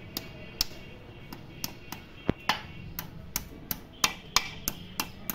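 Sharp metallic clicks and taps, about three a second and a little uneven, from metal hand tools working on a Mahindra tractor engine's crankshaft assembly.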